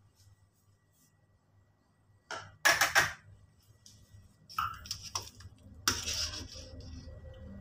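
Kitchen clatter of a plate and metal utensils being handled, loudest in a burst about two and a half seconds in. Later comes a metal spatula scraping and knocking in a wok, over a low steady hum.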